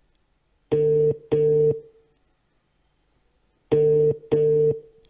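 Telephone ringback tone on an outgoing call, heard through a phone's loudspeaker: two double rings about three seconds apart, each a pair of short steady beeps, while the call rings unanswered.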